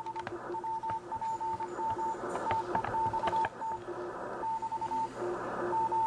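ARRL code practice transmission: a Morse code (CW) tone keyed on and off in dits and dahs at about 25 words per minute, over a band of receiver hiss. A few faint clicks sound under it.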